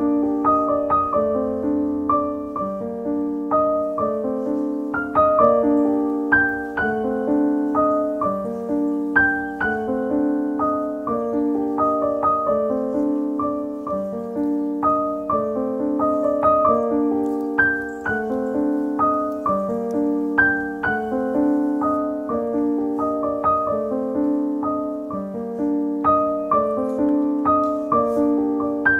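Background music: a solo piano playing a steady, repeating pattern of notes.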